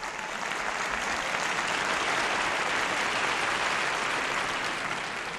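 Audience applauding in a large hall, building over the first second or so and easing off near the end.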